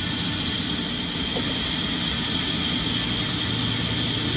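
Sawmill machinery running steadily: a constant low rumble with a steady high whine over it.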